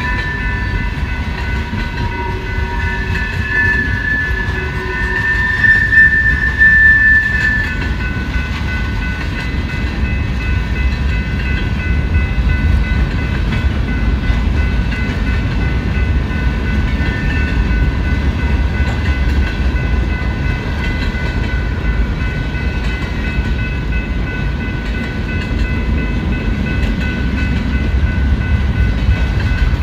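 Freight cars of a long BNSF manifest train rolling past: a steady low rumble of wheels on rail with clatter, and high-pitched squealing tones over it that are strongest in the first several seconds.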